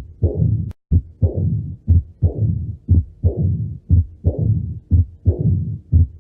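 Heart sounds of mitral stenosis, recorded by auscultation. About once a second a short sharp beat is followed by a long low rumbling murmur, the diastolic rumble typical of a narrowed mitral valve. A brief gap with a click breaks the rhythm under a second in.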